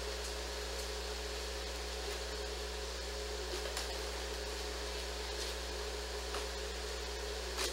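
Steady low hum with hiss throughout: room tone from an indoor mechanical or electrical source, with a few faint clicks, the clearest near the end.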